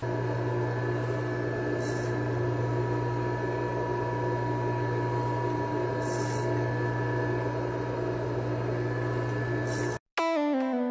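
Sanford surface grinder running steadily, a constant hum with a steady whine, while its wheel is trued with a diamond dresser; a faint hiss rises and fades a few times. Near the end the sound cuts out for a moment and electronic music starts.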